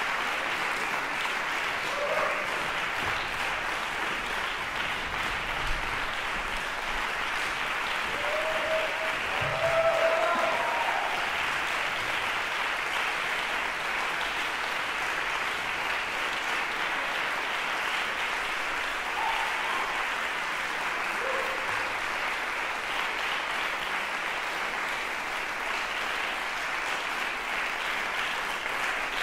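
Audience applauding steadily, swelling briefly about ten seconds in.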